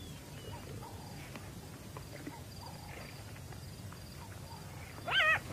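Faint open-air background, then near the end two short, high, wavering whines, typical of a black-backed jackal.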